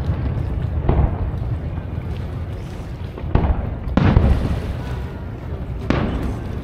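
Aerial fireworks shells bursting far off across a lake: four sharp bangs, about a second in, twice between three and a half and four seconds, and again near six seconds. Each bang is followed by a rolling rumble as it echoes over the water.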